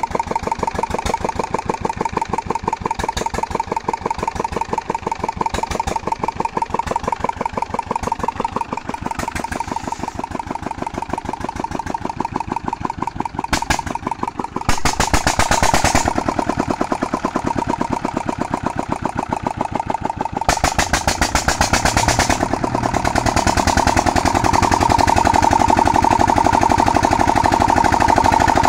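Petter-type 16 HP single-cylinder diesel engine running steadily under load, belt-driving a tubewell water pump, with an even, rapid chugging beat. It gets louder about halfway through and again a few seconds later.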